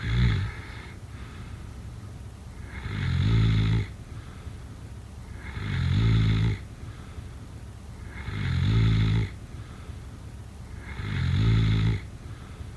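A sleeping person snoring in a steady rhythm, one long snore about every two and a half to three seconds, each swelling to its loudest before cutting off.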